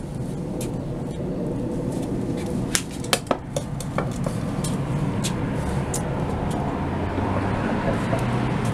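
A blunted shashka blade strikes a block of clay about three seconds in, with a quick cluster of sharp impacts, and sticks partway through. A few lighter knocks follow as the blade is worked in the clay.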